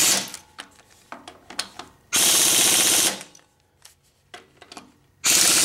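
Impact wrench hammering in three short bursts of about a second, some two and a half seconds apart, with light clicks between them. It is driving the bolts of a drive shaft coupler onto a Briggs & Stratton Vanguard crankshaft, run lightly at first to keep the coupler aligned.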